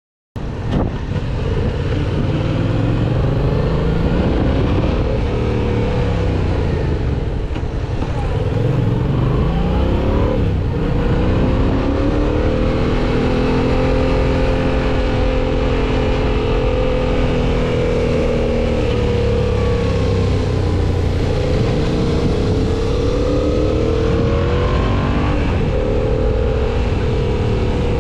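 Yamaha MT-07's 689 cc parallel-twin engine under way, its pitch rising and falling again and again as the rider accelerates, eases off and changes gear, with a steadier cruising stretch in the middle.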